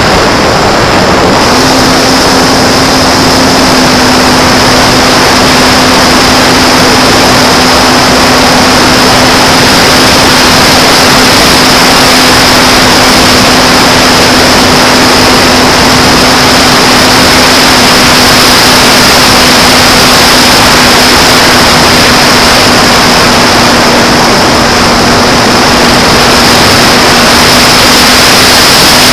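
Onboard sound of a J-Power Sky Surfer RC plane in flight: loud wind rushing over the plane-mounted microphone, with the electric motor and its APC 5.5x4E propeller giving a steady high whine and a low drone. The drone comes in about a second and a half in and holds steady.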